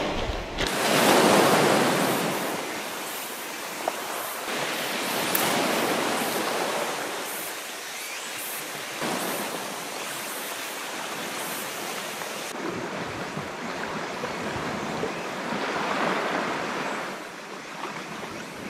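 Sea waves washing against a rocky shore, swelling and ebbing every few seconds.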